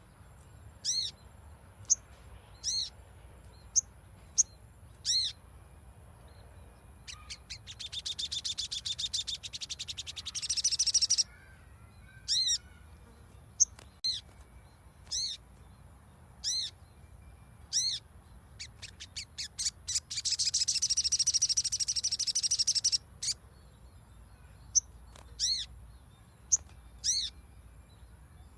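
Sogon (sogok ontong) bird song: a series of short, sharp call notes, broken twice by long, rapid, loud chattering trills, one about eight seconds in and one about twenty seconds in.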